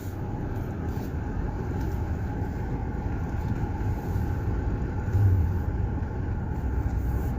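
Nissan car with a newly replaced transmission running as it is driven off, a steady low rumble heard from inside the cabin that swells briefly about five seconds in. This is the car whose owner says it now sounds like a go-kart.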